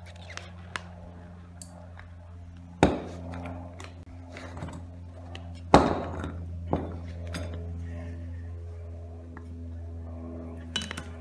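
Metal clanks and clinks of the crucible and its tongs during a pour of molten brass into an open mould. Two sharp ringing clanks come about three and six seconds in, with lighter clinks later, over a steady low hum.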